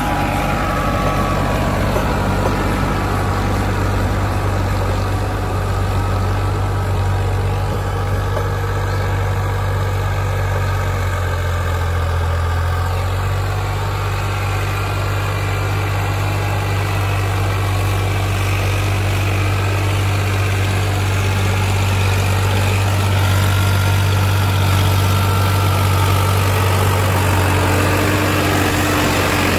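Farmtrac 60 tractor's diesel engine running steadily while it drives a rotavator through the soil.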